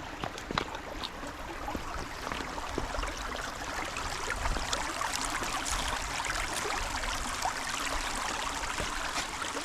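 Creek water flowing, a steady splashing hiss that grows louder over the first few seconds and then holds, with a few faint footsteps near the start.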